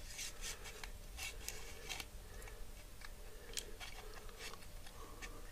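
Faint, scattered clicks and crackles of a TiMotion riser-recliner actuator's plastic parts and wiring being handled and fitted back together.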